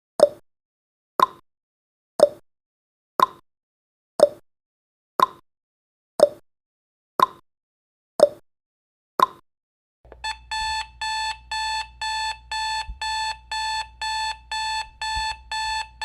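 Countdown timer sound effect: a short tick once a second, ten times, then from about ten seconds in a rapid alarm-clock beeping, about two or three beeps a second, signalling that the timer has run out.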